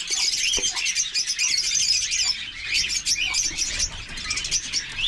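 Many small cage birds in an aviary chirping at once, a dense, continuous high-pitched chatter of overlapping short calls.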